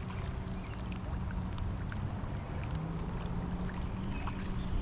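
On a fishing boat: a steady low motor hum with water sloshing at the hull and a few faint light clicks.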